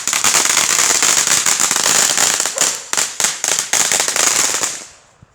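Small consumer firework going off: a steady high hiss packed with rapid crackling pops, dying away near the end.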